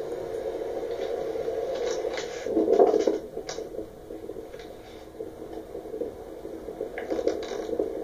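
Hampton Bay Landmark Plus 52-inch ceiling fan running with a steady whir, swelling to a louder rush about two and a half to three seconds in, with a few scrapes and clicks scattered through.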